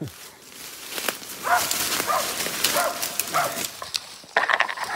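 West Siberian Laikas barking a treed black bear: a series of short barks, about one every half second to second, louder near the end, over a rushing noise.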